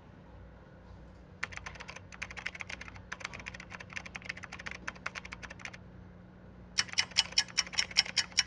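Rapid typing on a computer keyboard: a dense run of keystrokes starting about a second and a half in, then after a pause a louder, evenly spaced run of hard keystrokes near the end, over a low steady room hum.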